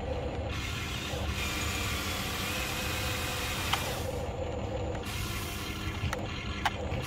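Huina RC excavator's electric drives and gearing whirring steadily as the boom lifts and the arm folds in, with a couple of short clicks.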